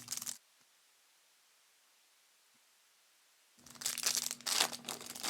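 Crinkling and tearing of trading-card pack wrappers, briefly at the start and again from a little past halfway, with about three seconds of silence between.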